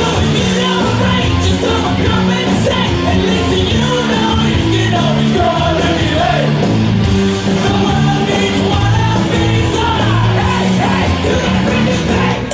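Loud song with singing and a steady beat, played for a dance routine.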